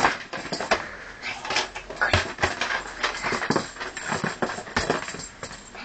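Irregular knocks and scuffs of a small child's feet stamping and shuffling on a wooden floor as she dances.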